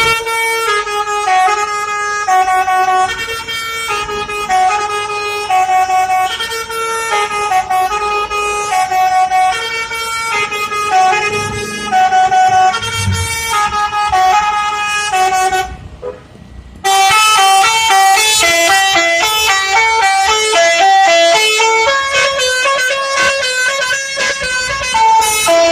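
Indonesian 'telolet' bus horn, a multi-tone musical horn, playing loud repeating melodic note patterns. It breaks off for about a second past the middle, then resumes with a faster, higher run of notes.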